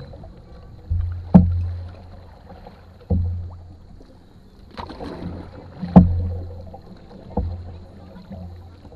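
Canoe being paddled: about six hollow knocks as the paddle strikes the canoe's gunwale and hull, each leaving a low booming ring in the hull that dies away. The sharpest knocks come just over a second in, about two-thirds of the way through, and shortly after that.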